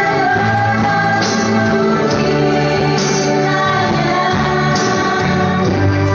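A choir singing sustained, shifting notes, with a short bright hit recurring about every two seconds.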